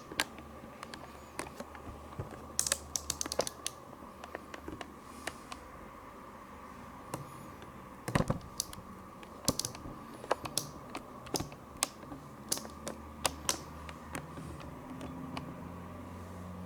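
Irregular sharp clicks and taps from hands handling a small product box and its packaging, some in quick clusters, over a steady low hum.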